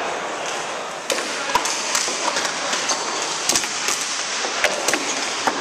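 Floor hockey sticks clacking against each other and the ball knocking on a wooden gym floor: a string of sharp, irregular clicks over a steady hiss.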